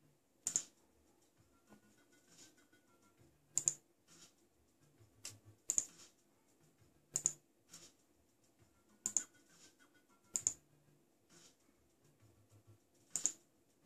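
Sharp single clicks of computer keys pressed one at a time: about ten, spaced a second or two apart.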